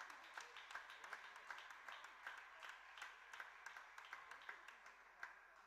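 Faint, irregular clicks and taps, a few a second, in a large table tennis hall, fading near the end.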